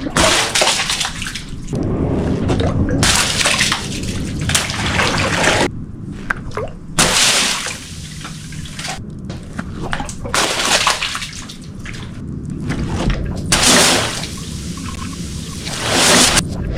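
Water sloshing and splashing in repeated noisy surges, each a second or two long.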